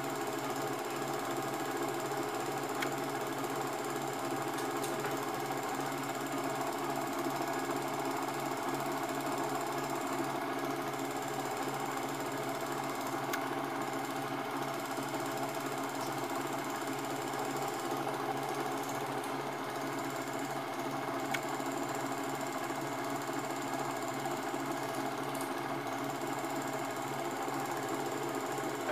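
Film projector running: a steady mechanical whirr from its motor and film mechanism, holding one even level throughout.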